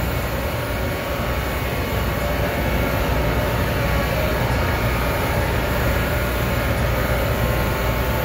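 Powder-coating spray booth's exhaust blower running, a steady whooshing drone with a low hum.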